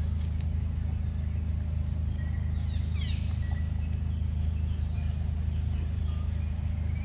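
A steady low hum, unchanged throughout, with faint short high chirps and whistles about two to three seconds in.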